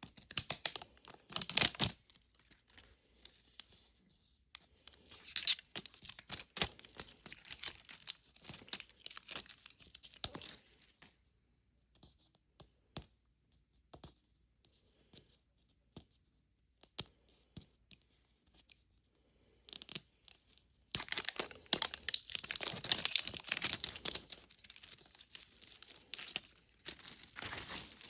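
Wrapper of a Mini Brands Fill the Fridge capsule being torn and crinkled off by hand. It comes in three bouts of crackling, with scattered small clicks between them, and the longest and loudest bout is near the end.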